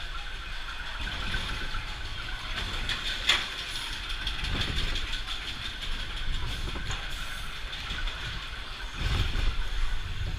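Primeval Whirl's steel wild mouse coaster car rolling along its track: a steady rattle and rumble of wheels on steel rails. There is one sharp clack about three seconds in and a louder rumble near the end.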